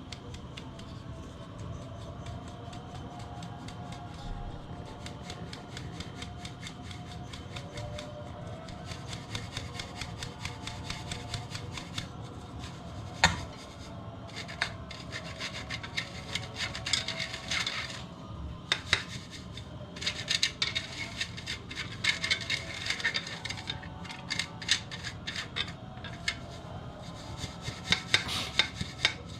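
Rapid, repeated rubbing and scraping strokes of a kitchen utensil, likely whisking or sifting the cake's dry ingredients. The strokes grow louder from about a third of the way in, with one sharp knock around the middle. Near the end they settle into louder, even strokes about two a second.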